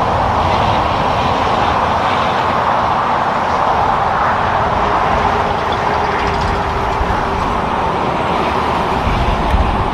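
Highway traffic passing at speed: a steady rush of tyre and engine noise from cars and trucks, with a heavier low rumble near the end.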